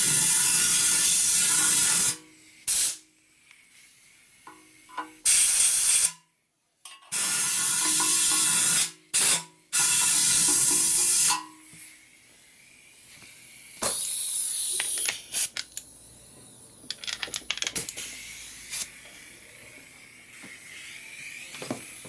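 Compressed air blown through a motorcycle oil tank and its new fitting, testing that air passes straight through: a string of loud hissing blasts, one to two seconds each, stopping and starting. In the second half the hiss is fainter, with a few light clicks.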